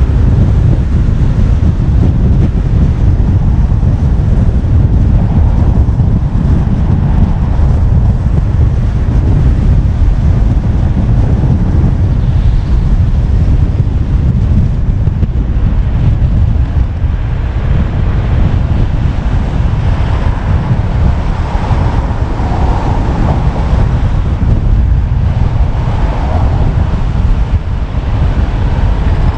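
Wind buffeting a car-mounted GoPro's microphone while the car drives along, a loud steady low rumble mixed with road and tyre noise, easing slightly about halfway through.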